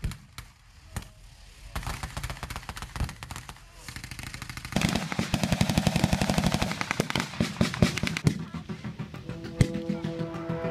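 Blank-fire gunfire from a battle reenactment: scattered single rifle shots, then about halfway through dense rapid firing in fast bursts. Music fades in near the end.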